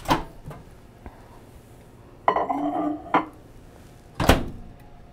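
Over-the-range microwave being loaded: a click as the door opens, a ceramic bowl clattering as it is set on the glass turntable about two seconds in, then a loud knock as the door is shut near the end.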